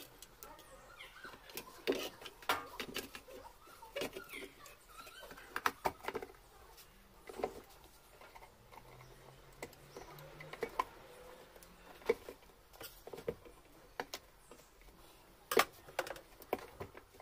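Irregular clicks and knocks of a single-burner electric hot plate's sheet-metal housing and parts being handled and fitted back together by hand, a dozen or so sharp taps spread out with short gaps between them.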